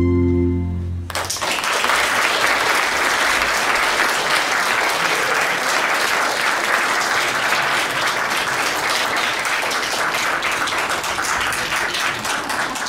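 The band's last held chord ends about a second in, and the audience breaks into steady applause, many hands clapping.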